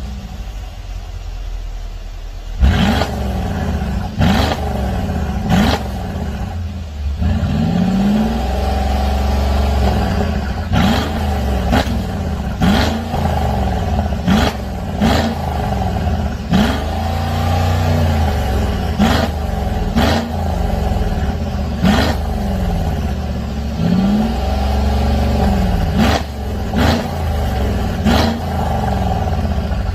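Mercedes-Benz X166 GLS500's twin-turbo V8 revved through a valved cat-back exhaust with a sport resonator, valves open. It idles for about two seconds, then gives a long series of quick throttle blips, about one every second or two, a few of them held a little longer.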